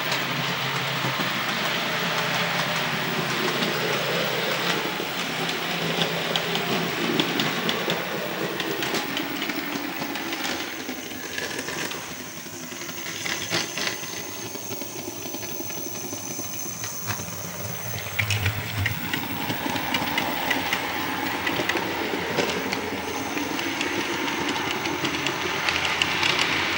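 Model G5 tank locomotive running on the track with three coaches in tow, climbing a gradient with ballast added to its body for traction. It makes a steady hissing running noise.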